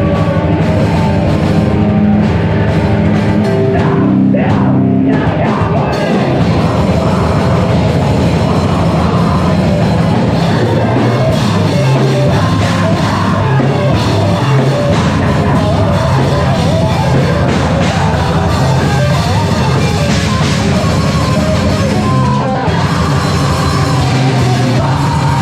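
Live heavy rock band playing loud, with drums, bass and guitars in a continuous full-band passage.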